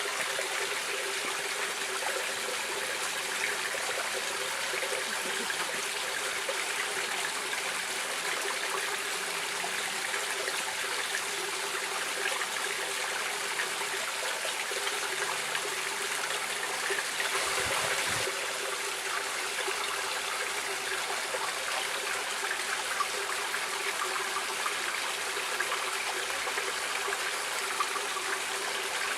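Stream water running and trickling steadily, an even rushing noise with a slight swell about two-thirds of the way through.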